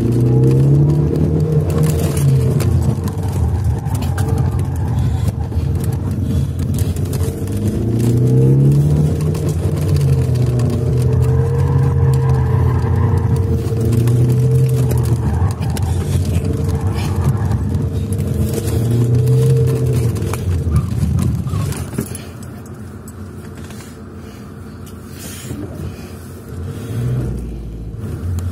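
Car engine heard from inside the cabin, revving hard and dropping back again and again as the car is driven through a cone course. After about twenty seconds it falls to a quieter, low-speed run.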